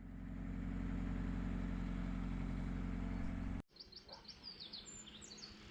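Narrowboat engine running steadily with a low hum. It cuts off abruptly about three and a half seconds in, giving way to quieter outdoor sound with a bird chirping several times in quick succession.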